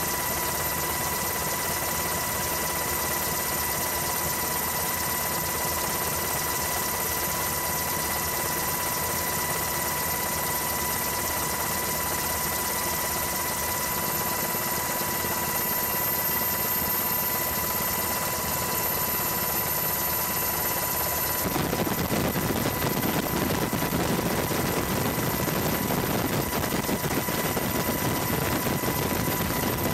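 Steady helicopter engine and rotor noise with a constant high whine. About two-thirds of the way in the sound changes abruptly and turns deeper.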